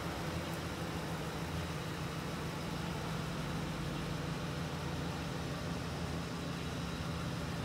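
Ford utility-body truck's engine idling steadily, a low even hum that doesn't change.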